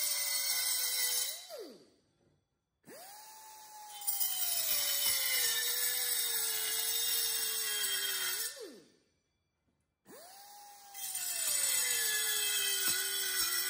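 Pneumatic air saw cutting through aluminium tube: a high whine with harsh metal-cutting noise, its pitch sagging as the blade bites in. It stops twice, then spools back up with a rising whine before biting into the tube again.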